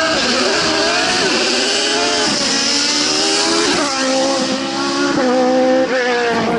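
Race car engine at full throttle, its pitch climbing and then dropping sharply at each gear change several times over a few seconds.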